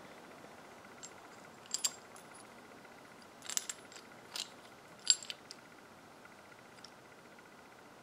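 Light metallic clinks of a replica No. 4 Mk I (T) sniper scope bracket and rings knocking together as they are handled: a handful of short, sharp clicks scattered over the first five or so seconds.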